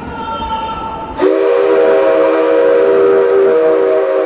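Steam locomotive C57 135's whistle blowing one long blast that starts suddenly about a second in, several steady tones sounding together.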